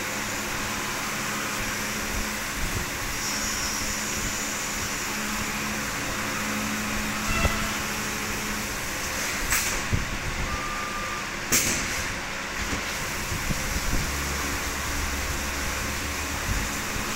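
CNC vertical machining centre milling under flood coolant: a steady hum and hiss of the spindle, cutter and coolant spray. A few sharp clicks stand out near the middle.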